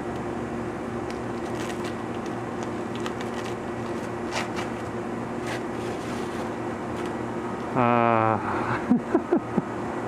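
Steady electrical hum of shop equipment, with faint scratching as film is peeled off a machine's label plate. About eight seconds in comes a short voiced sound from a person, followed by a few brief sharp blips.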